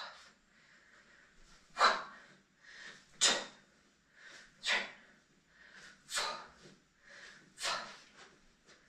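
A person breathing hard in rhythm with leg lifts and swings: a sharp exhale about every second and a half, with softer inhales between.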